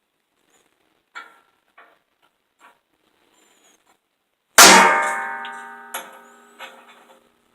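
A few light metal clicks as a 1/4-inch steel letter stamp is set on steel flat bar. About four and a half seconds in comes one hard strike on the stamp, whose ring fades over a couple of seconds, then two lighter knocks.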